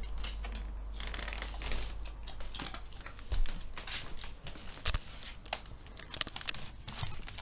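Irregular clicks and taps of a dog's claws on a parquet floor as it jumps and scrambles about, mixed with rustling and knocks from the handheld camera being moved.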